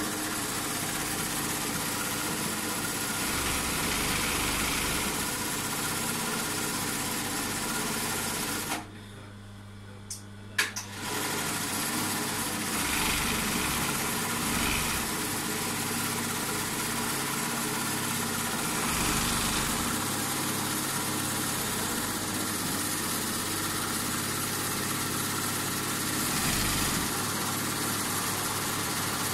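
Sewing machine running steadily as it stitches an embroidered appliqué flower onto fabric. About a third of the way in it stops for roughly two seconds, with a couple of clicks, then runs again.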